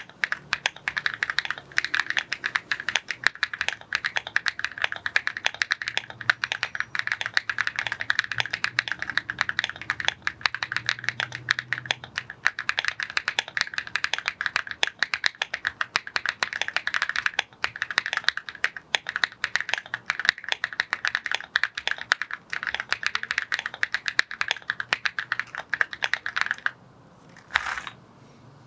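Fast, continuous typing on a Rainy75 keyboard fitted with KTT Baby White linear switches, keystrokes following one another in a dense stream. The typing stops near the end, leaving one last single keystroke.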